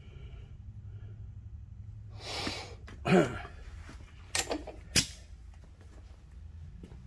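Metal parts being handled at the camshaft check stand: a short scrape, a loud knock with a brief squeak just after three seconds, then a few sharp clicks and a knock about five seconds in, over a steady low shop hum.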